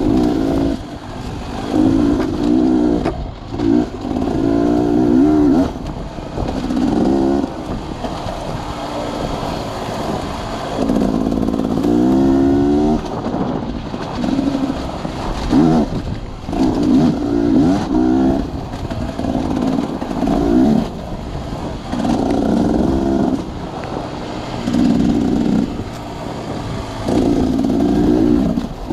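Dirt bike engine being ridden hard, revving up and easing off again and again, its pitch rising with each burst of throttle.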